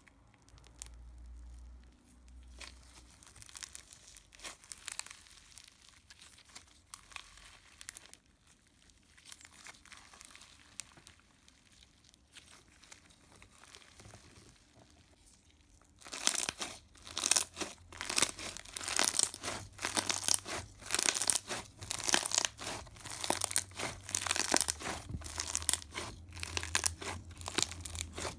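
Thick, overactivated slime being stretched and pressed by hand, tearing with a crackling sound. At first there are only faint scattered crackles. About halfway through a dense run of loud crackles and pops starts and keeps going.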